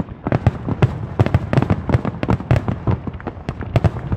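Aerial fireworks bursting in rapid succession: a dense string of sharp bangs and crackles, several a second, some much louder than others.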